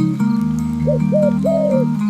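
Background music of sustained chords, with a mourning dove cooing over it about a second in: two short coo notes and then a longer one.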